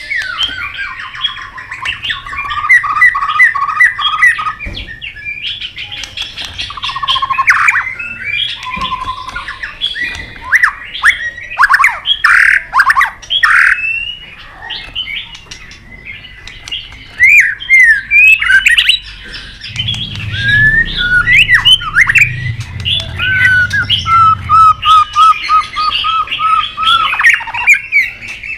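White-rumped shama singing loudly in rapid, varied whistled phrases and repeated note series, mixed with sharp clicking "tak" calls. Near the end comes a fast run of evenly repeated notes.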